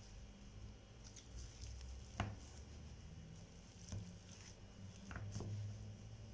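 Metal wire potato masher pressing hot boiled potatoes in a ceramic dish: soft squishing, with a sharp knock about two seconds in and a few lighter knocks later as the masher meets the dish.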